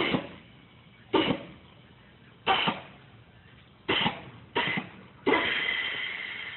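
Air-suspension solenoid valves on a 1966 van releasing short hisses of air: five quick bursts about a second apart, then a longer hiss with a steady whistle near the end.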